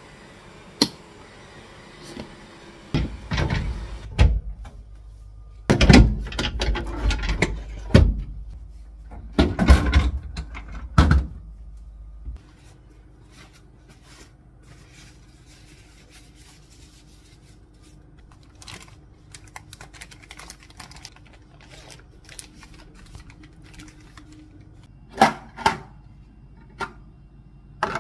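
Clear plastic food storage containers and their clip-on lids handled on a kitchen counter: a run of sharp clicks, snaps and knocks in the first half, then a quieter stretch with a few knocks near the end.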